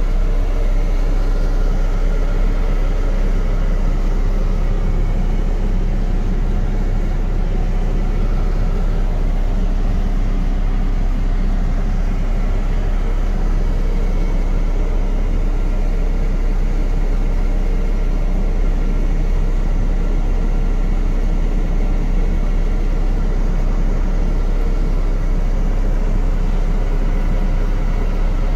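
MAN TGS 26.440 truck's six-cylinder diesel engine idling steadily, heard from inside the cab as an even, deep rumble.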